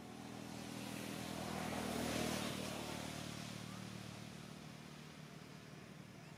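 A motor vehicle passing by: its engine and road noise swell to a peak about two seconds in, then fade away.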